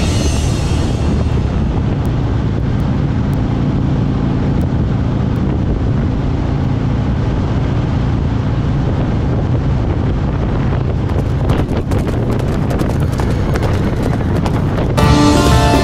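Motorcycle engine running steadily under way, with wind rushing over the microphone. Music comes back in near the end.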